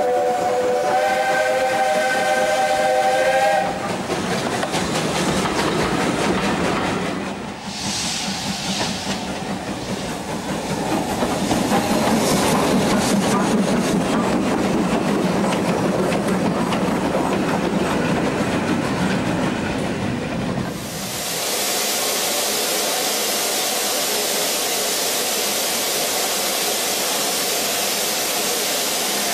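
Steam locomotive whistle blowing a steady chord of several tones at once for about three and a half seconds. It is followed by the hiss and rush of escaping steam and the engine working as it moves, which varies in loudness. From about twenty seconds in there is an even, steady hiss.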